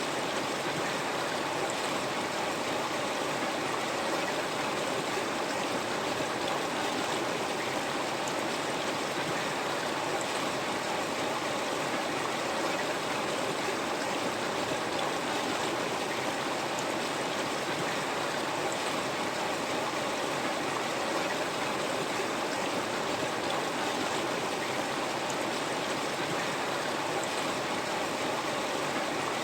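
River water flowing over stones, a steady rushing and burbling without change.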